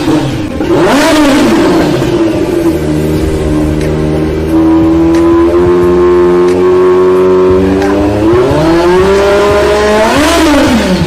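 Sports motorcycle engine revving hard: the pitch swings up and down, climbs and holds at high revs for several seconds, then rises once more and drops sharply near the end.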